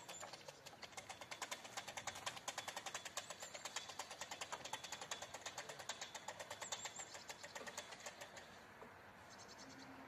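Railway level-crossing warning bell ringing in fast, even strikes, several a second, while the crossing's barrier arms lower; the ringing stops near the end, once the barriers are down.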